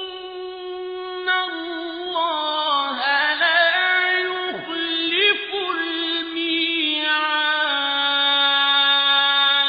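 A man's high voice chanting Quran recitation in melodic tajweed style, holding long notes with wavering, gliding ornaments. Near the end the held note settles lower.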